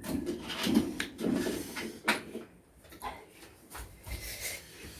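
Someone eating spicy instant noodles: soft chewing and slurping mouth sounds, mixed with scattered small clicks and knocks of things being handled.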